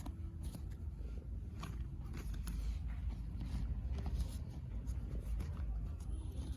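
Light scrapes and clicks of cardboard jigsaw puzzle pieces and their box being handled, over a low steady rumble.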